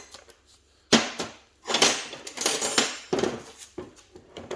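Metal lug nuts clinking and scraping as they are handled and started by hand onto a truck's wheel studs: a sharp knock about a second in, then a run of clinks and scrapes.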